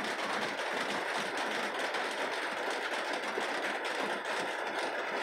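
Steady mechanical hum and hiss with a faint high whine.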